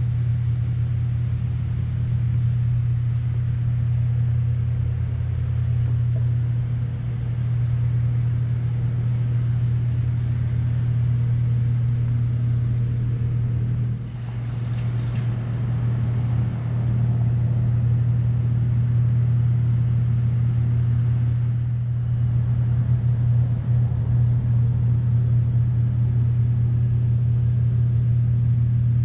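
Steady low mechanical drone of a running motor, with an even hiss over it, holding the same pitch throughout.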